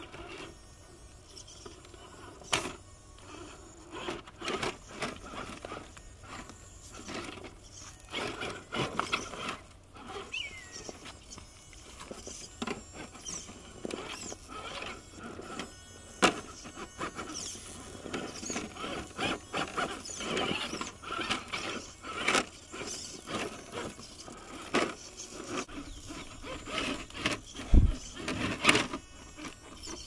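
Axial SCX10 II Deadbolt RC rock crawler's electric motor and geared drivetrain whirring in short stop-start bursts as it creeps up rock. Its tyres and chassis scrape and knock on the stone in scattered clicks, with a heavy thump near the end that is the loudest sound.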